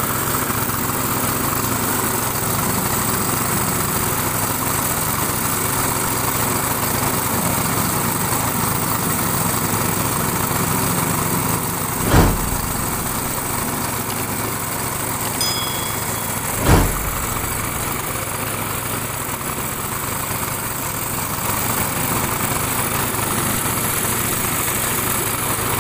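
Small boat engine running steadily, pushing a loaded river boat along. Two sharp thumps break through, one about halfway through and another a few seconds later.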